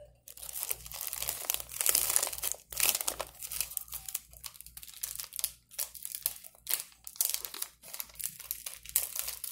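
Plastic zip-top bag and the cellophane spice packet inside it crinkling and rustling as they are handled and opened, an irregular run of crackles with brief pauses.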